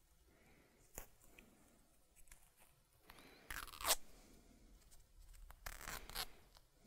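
White athletic tape being pulled off the roll and wrapped around a hand: a sharp click about a second in, then two short rasping pulls of tape, the loudest just before four seconds and another around six seconds.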